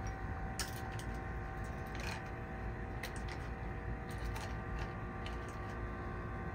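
Scattered light clicks and taps as a cocktail garnish of an orange slice and cherries on a pick is fitted onto the rim of a glass, over a steady background hum.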